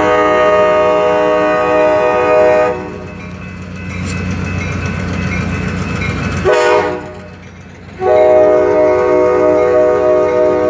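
Nathan K5LA five-chime air horn on an FL9 locomotive sounding for a grade crossing: a long blast, a short blast about six seconds in, then another long blast. Between the blasts the locomotive's diesel engine rumbles as it passes.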